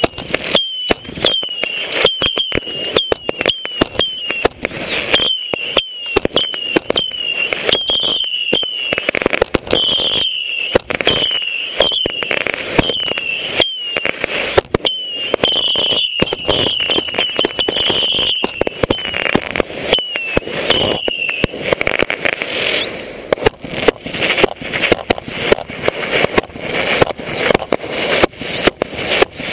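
Consumer aerial fireworks firing in quick succession at close range: sharp shots and bursts about two a second. For the first twenty seconds or so many shots carry a short whistle, and after that the bangs come denser without it.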